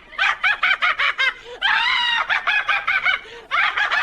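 High-pitched cackling laughter in quick runs of short ha-ha syllables, with a longer, higher squeal about two seconds in and a brief pause near the end.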